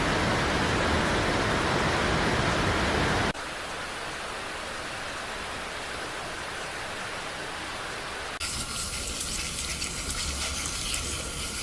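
Steady rushing noise of water, in three spliced stretches that change abruptly about three and eight seconds in, the first the loudest.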